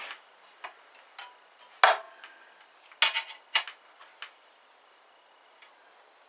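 Irregular light metallic clicks and taps as a feeler gauge is worked between the blade and the metal guide blocks of a 9-inch bandsaw's upper blade guide, checking their clearance. The loudest click comes about two seconds in, with a quick cluster a second later, and the taps thin out near the end.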